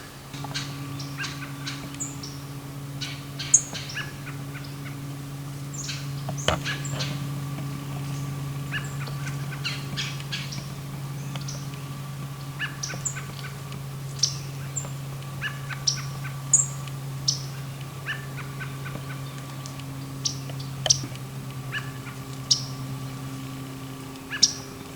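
Small birds chirping in many short, scattered calls over a steady low hum.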